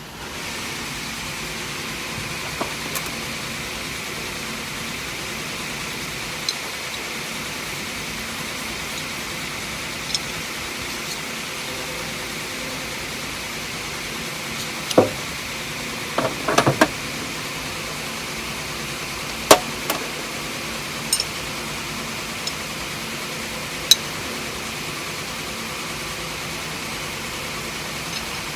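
Scattered clinks and knocks of metal tool holders and collets being handled, a few at a time, over a steady background hum.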